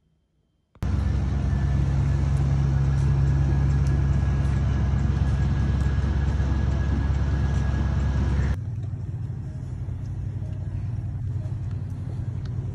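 A car running: a steady low rumble with a faint high-pitched whine, cutting in abruptly about a second in. About two-thirds of the way through it drops suddenly to a quieter rumble.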